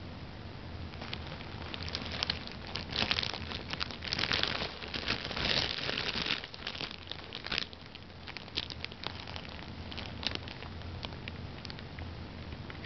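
Fabric cat tunnel crinkling and rustling as a cat turns around inside it, pressing against the walls. The rustling is densest in the middle, then thins to scattered rustles near the end.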